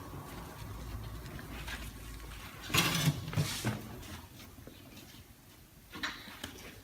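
Low hum from a vertical cardboard baler with its motor just stopped, then a short cluster of clanks about 3 seconds in and a single knock near the end.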